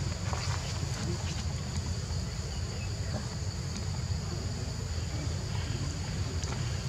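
Outdoor ambience: a steady high-pitched insect drone over a constant low rumble, with a few faint clicks near the start.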